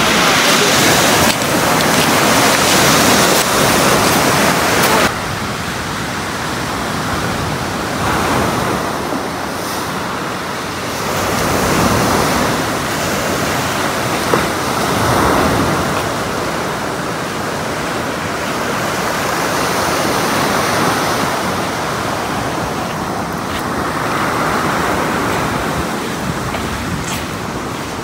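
Outdoor rushing noise that swells and eases every few seconds, with a sudden drop in level about five seconds in.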